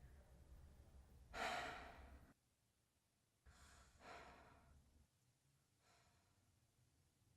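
A person sighing heavily: a loud exhale about a second in, a second, softer one about four seconds in, and a faint third near six seconds, each fading away.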